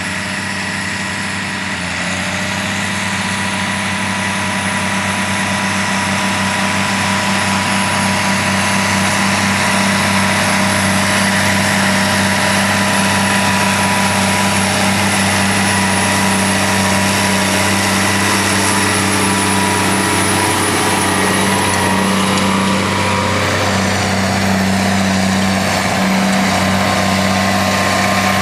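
Case IH Magnum tractors' diesel engines working steadily under load while pulling tillage implements through the soil. The drone grows louder over the first several seconds as the nearer tractor comes closer, then holds.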